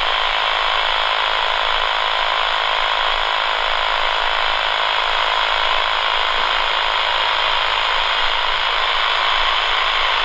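Handheld AM radio giving out a steady hiss of static. The buzzing interference picked up from the robot lawnmower's boundary wire has died away here, the sign that the border cable is broken near this spot.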